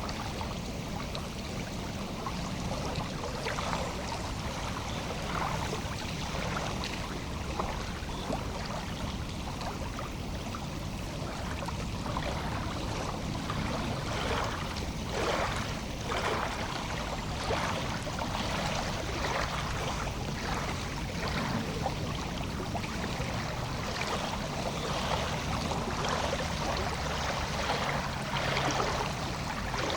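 Lake water lapping at the shore in small, irregular splashes over a steady low rumble.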